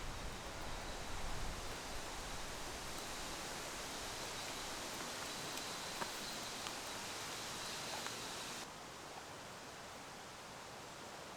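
Steady rain falling, an even hiss with a few faint ticks of drops. About three-quarters of the way through, the hiss suddenly turns duller and quieter.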